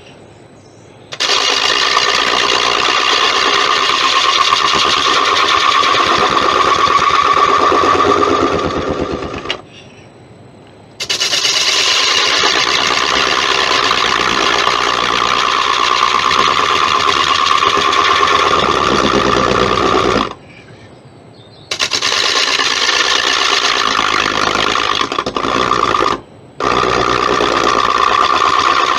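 Negative rake scraper cutting on a spinning monkey puzzle bowl on the lathe: long, loud scraping passes to clean up a rough surface. The sound drops away briefly about 10, 20 and 26 seconds in as the tool comes off the wood.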